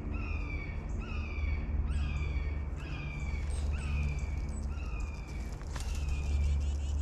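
A bird calling in a regular series of about eight falling, slurred calls, a little under a second apart, over a steady low rumble.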